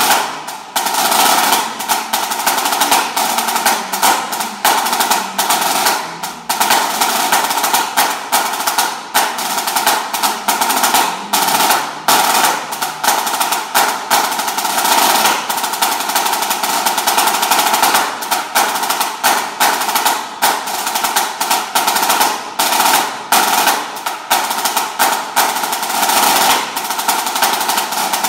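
Refurbished Premier HTS 200 pipe band snare drum played with sticks in fast rolls and rudiment patterns: dense, crisp strokes with brief breaks, over a steady ring from the head. Its tuning is a bit flat, by the owner's account.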